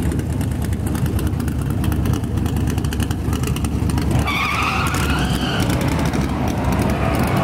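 Race pickup truck's engine running loudly with a fast pulsing beat; about four seconds in, its rear tyres break loose in a burnout and a wavering tyre squeal comes in over the engine.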